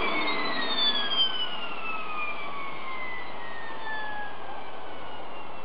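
Small axial-flow gas turbine engine (Armfield CM14) running with a steady rush of air noise, its whining tones gliding down in pitch over several seconds as the turbine slows.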